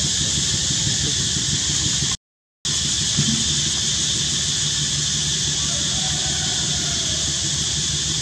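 Steady outdoor ambience: a high-pitched hiss with a low rumble beneath, cutting out completely for about half a second about two seconds in.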